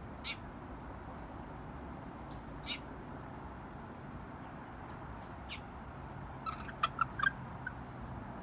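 Young chickens resting and giving a few short, high peeps, then a quick run of chirps about seven seconds in, over a steady faint background noise.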